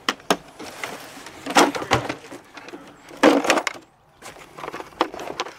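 Hard plastic tool cases being handled and opened on the ground: a series of clacks, latch snaps and rattles, with the loudest clatter about three seconds in.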